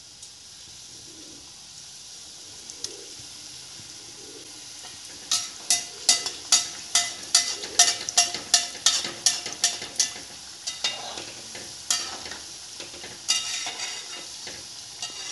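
Momos deep-frying in a kadhai of oil on a low flame: a soft steady sizzle, joined about five seconds in by a run of sharp clicks, about three a second, for some five seconds, then a few more near the end.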